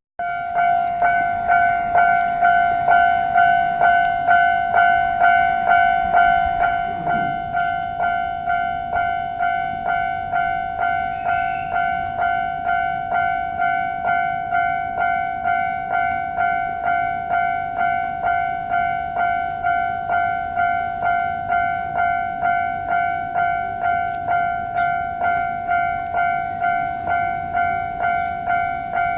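Japanese railway level-crossing warning alarm ringing in an even repeating ding, about two strokes a second, a little quieter from about six seconds in.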